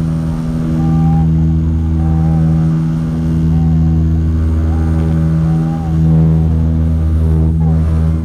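Dash 8 turboprop engine and propeller at high power, heard from inside the cabin: a loud, steady drone with a low propeller hum that holds its pitch.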